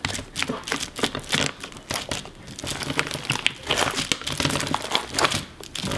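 Hands pressing and kneading clear slime packed with plastic bendy drinking straws: a dense, continuous run of crunchy crackling and crinkling.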